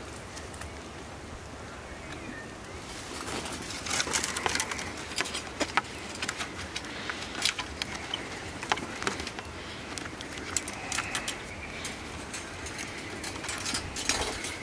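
Thin steel wire being wrapped and twisted around a wooden stake and crosspiece with pliers. Irregular clicks, scrapes and rattles of the wire and pliers against the wood start about three seconds in.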